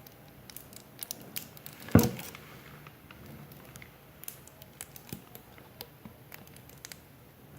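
Light clicks and handling noises from slime-making materials, with one sharp knock about two seconds in.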